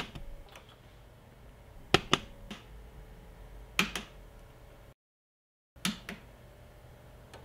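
Sharp plastic clicks of a snowmobile's handlebar switch being pressed and released, several times and mostly in pairs, switching the new LED turn signals on and off.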